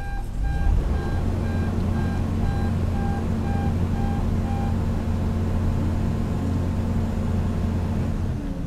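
Heavy diesel engine of a hydraulic excavator running under load with a steady low drone. A machine warning alarm beeps about twice a second over it, then stops about four and a half seconds in.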